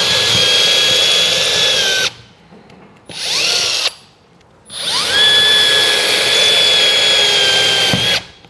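Cordless drill with an 1/8-inch bit drilling pilot holes into a wooden wall stud. The motor whine rises as it spins up and holds steady for about two seconds, a short burst follows, then a longer run of about three seconds that stops sharply.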